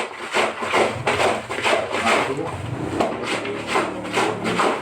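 Laundry being scrubbed by hand, a rhythmic rasping rub of cloth about two to three strokes a second.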